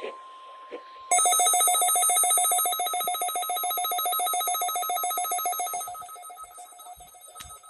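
NOAA Weather Radio's steady 1050 Hz warning alarm tone, cut off about a second in by a weather radio receiver's own alarm set off by that tone. The alarm is a loud, rapidly pulsing electronic beep that dies away near the end.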